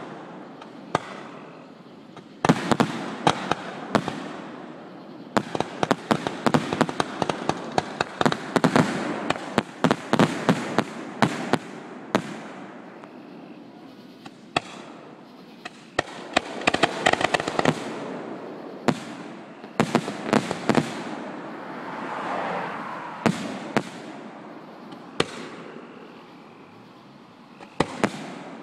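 Aerial fireworks show: shells bursting with sharp bangs and fast runs of crackling, coming in clusters with short lulls between them.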